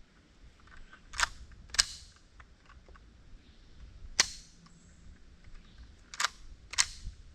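Five sharp metallic clicks from a .22 rifle, in a pair, a single, then another pair: the action is worked and the firing pin falls on rounds that fail to go off. The .22 ammunition, left out in the weather for two months, has gone bad.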